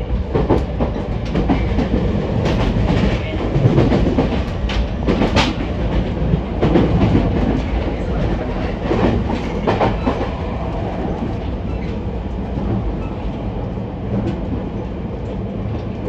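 Running noise inside a JR East E231 series commuter train car: a steady low rumble of the moving train with sharp clicks from the wheels on the track. The clicks come thick through the first ten seconds or so, then the running goes smoother.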